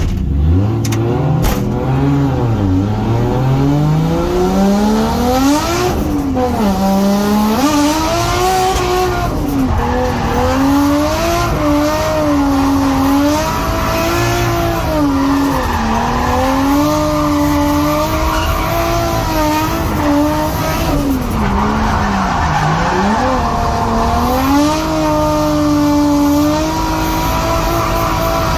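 Nissan Skyline R32's turbocharged RB20DET straight-six revving hard while drifting: the engine pitch climbs over the first few seconds, then rises and falls continually, with tyres squealing.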